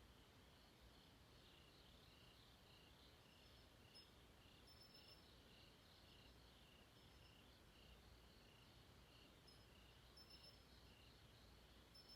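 Faint crickets chirping in a steady, evenly pulsing chorus, with a few brief higher chirps now and then over a low hum.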